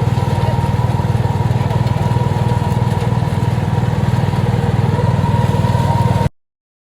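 Petrol engine of a flail mower running steadily with a fast, even firing pulse and a thin steady whine above it; the sound cuts off suddenly near the end.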